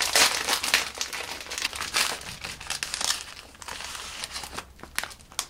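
Plastic snack wrapper crinkling as it is torn open and a chocolate wafer is slid out of it, a run of crackly rustles that is loudest at the start and again about two seconds in.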